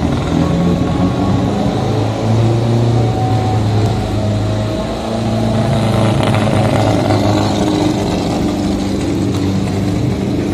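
Large bus engine running at idle with a steady low hum that dips briefly about five seconds in and then picks up again.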